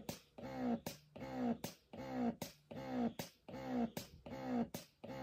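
Lansinoh Signature Pro double electric breast pump running in expression mode, its slower suction cycle after let-down. Each cycle is a motor whir that sweeps down in pitch and ends in a click, repeating about every three-quarters of a second.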